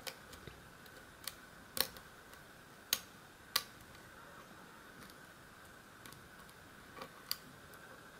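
Sharp, irregular metallic clicks of a steel hook pick setting and lifting pins in a pin-tumbler euro cylinder under light tension, about seven ticks with the loudest in the first four seconds.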